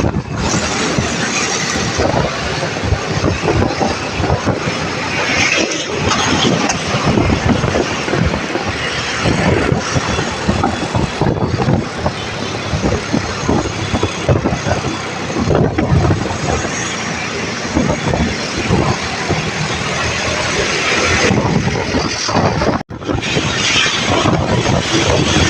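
Loud, steady road noise from moving traffic, an even rush with no horn sounding; it cuts out for an instant near the end.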